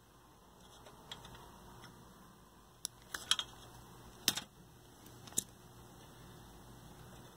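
Workbench handling noise: a handful of sharp clicks and taps, the loudest about three, four and five seconds in, as a wire and metal hand tools are worked against a sheet-metal TV chassis. A faint steady hum runs underneath.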